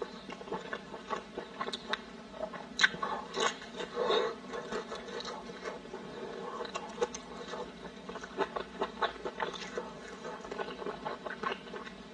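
Close-up wet chewing and lip-smacking of soft, fatty meat, with irregular sticky clicks and a sharper smack about three seconds in.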